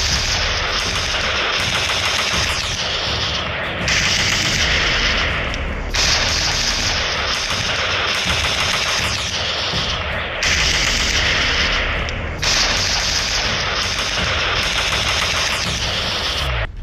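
Continuous rapid machine-gun fire, changing in character every few seconds and cutting off suddenly at the end.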